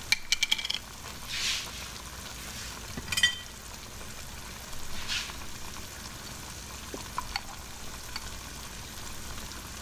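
Browned short ribs sizzling and frying in their sauces in a pot on the stove, a steady hiss. A few short, louder bursts break through it near the start and around three and five seconds in.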